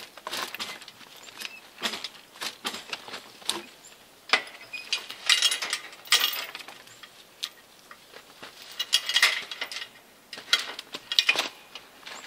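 Steel logging chain clinking and rattling in irregular bursts as it is handled and hooked around a log, with a few sharper clanks.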